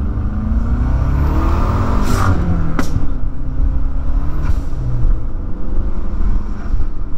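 A Mazda's engine pulling steadily from inside the cabin, with road noise under it; its pitch rises over the first two seconds. A vehicle sweeps past about two seconds in, with a sharp tick just after, and another passes about four and a half seconds in.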